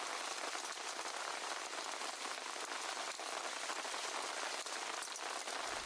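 Hail falling: a steady, dense patter of many small hits.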